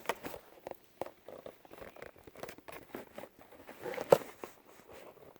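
Handling noise: scattered clicks, taps and rustles, with one sharper knock about four seconds in.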